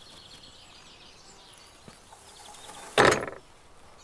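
Faint birdsong, with one sudden loud noise about three seconds in that dies away within half a second.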